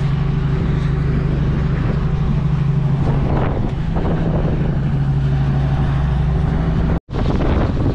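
Truck engine running with a steady low drone under a rush of wind on the microphone. About seven seconds in the sound cuts out for an instant and comes back as wind rush without the engine drone.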